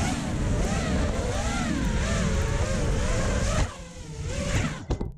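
Brushless motors (RS2205S 2300Kv) of an FPV quadcopter whining through 5040 three-blade propellers, the pitch wavering up and down with the throttle, with air rushing over the onboard camera's microphone. About three and a half seconds in the motors throttle down and the pitch falls as the quad comes down, and the sound cuts off sharply near the end.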